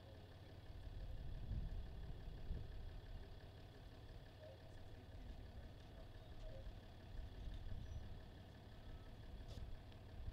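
An engine idling steadily over a low, uneven rumble.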